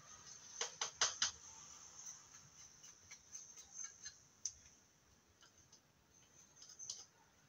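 Small plastic spatula clicking and scraping against a plastic eyeshadow palette and the rim of a plastic slime tub: a quick run of four sharp clicks in the first second or so, then lighter scattered ticks, and a few more clicks near the end.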